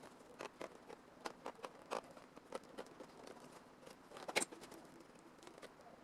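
Scattered light clicks and taps at an uneven pace, with one sharper click about four and a half seconds in.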